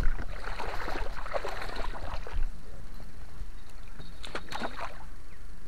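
Water sloshing and splashing at the water's edge, busy for the first couple of seconds, then quieter, with a few short splashes about four seconds in.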